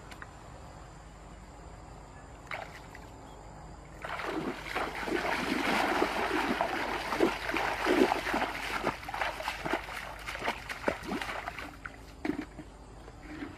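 Shallow stream water splashing as a person wades quickly through it, setting in about four seconds in as a run of irregular splashes and dying away near the end.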